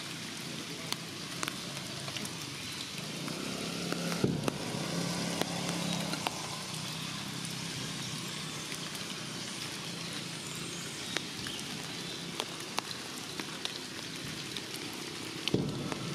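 Steady light rain pattering on foliage, with scattered drips ticking on leaves. A low hum swells from about three to six seconds in and fades again.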